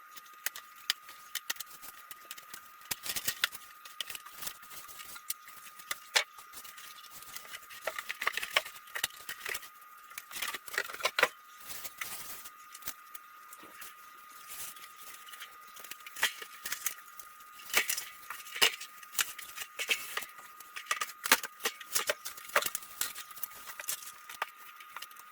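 Packaging being handled and pulled off a boxed camping fridge: irregular rustling, crinkling and sharp clicks of cardboard and plastic wrap.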